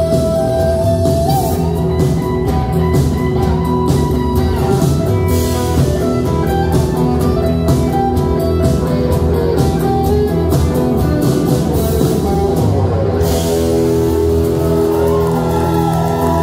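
Live rock band playing an instrumental passage: electric guitars over a drum kit. About thirteen seconds in, the drums and cymbals stop while the guitars keep a chord ringing.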